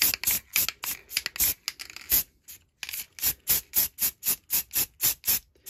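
Aerosol can of black spray primer being shaken hard, its mixing ball rattling in quick even clicks about five times a second, with a short pause about two seconds in.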